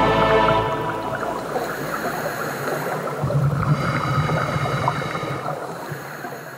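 The music's last held chord dies away within the first second, then sea water washes and laps, fading out near the end.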